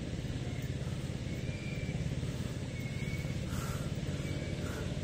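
Grass trimmer running steadily at an even pitch, a continuous mechanical drone with a fast pulsing.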